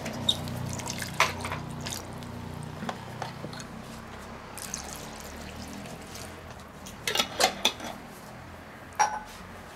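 Beef stock being poured from a glass jar into a cast-iron Dutch oven of goulash, with a few sharp knocks.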